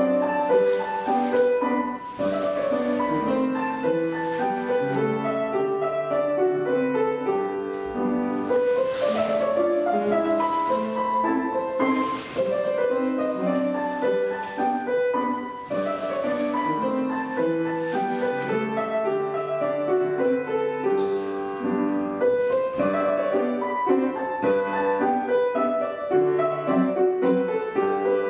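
Piano playing a classical piece as accompaniment for ballet barre exercises, with notes and chords sounding continuously in a steady metre.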